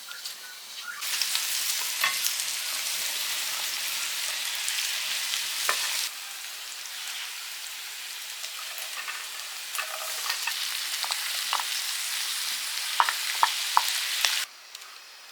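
Food frying with a loud, dense sizzle in a hot pan. The sizzle gets quieter about six seconds in and cuts off suddenly near the end, with a few sharp knocks of a stirring utensil just before.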